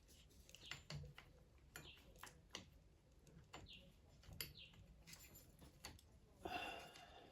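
Faint, scattered clicks and taps of small metal parts (a multitool's blade, nut and washer) being handled, with a short louder scuff near the end.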